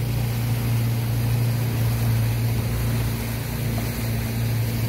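Motorboat engine running steadily as the boat moves, a low even hum, with wind and water noise over it.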